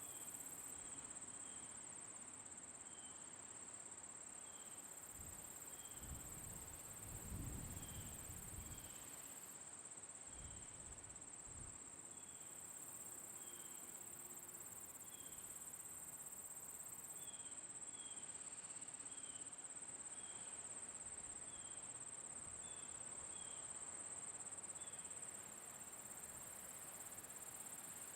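Crickets trilling steadily in a high, unbroken drone, with short high chirps repeating about once a second over it. A brief low rumble passes about a quarter of the way in.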